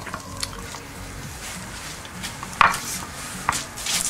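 Cheese cubes being placed into small terracotta dishes on a wooden cutting board: a few light clicks and taps, the loudest about two and a half seconds in.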